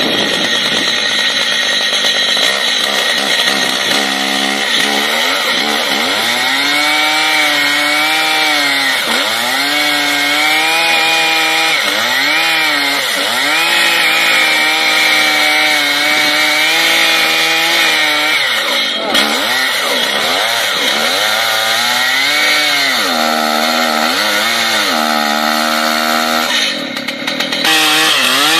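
Large Stihl two-stroke chainsaw with a long bar cutting deep into a thick log, its engine pitch repeatedly sagging under the load of the cut and climbing back. Near the end there is a brief break, after which it runs higher and steadier.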